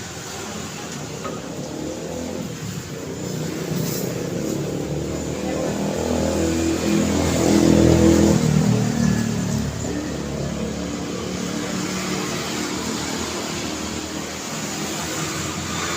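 Street traffic with one motor vehicle passing close by: its engine grows louder to a peak about halfway through, then falls away, over the steady noise of other traffic.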